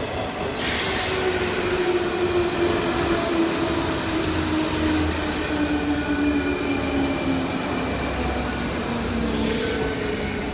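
JR West 201 series electric commuter train running past along the platform: wheels rumbling on the rails, with a motor whine that falls steadily in pitch over several seconds as the train slows.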